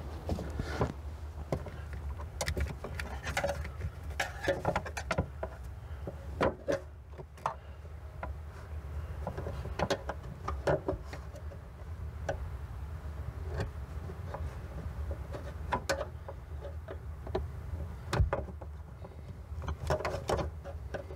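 Irregular metal clicks, taps and scrapes of a hand tool prying at the end fitting of a worn gas-charged trunk lift support, over a steady low hum.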